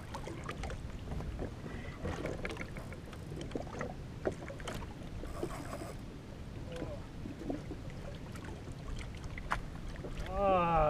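Wind on the microphone and water slapping against the hull of a drifting jet ski, with scattered light clicks and a brief vocal sound near the end.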